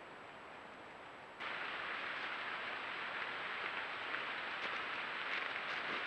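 Faint outdoor ambience, then about a second and a half in a louder, steady hiss sets in, the background noise of a trail camera's night recording, with a few faint rustles.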